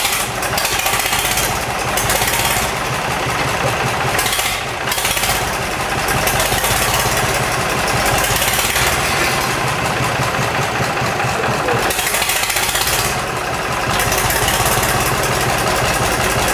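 Gardner 3LW three-cylinder marine diesel engine running steadily, just after starting up.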